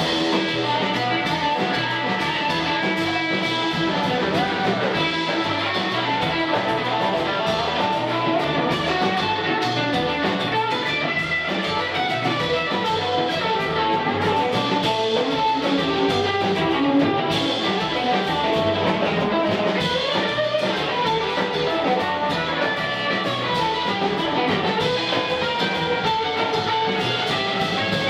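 A live blues band plays an instrumental passage without vocals. A hollow-body electric guitar is out front, over a drum kit and an upright double bass.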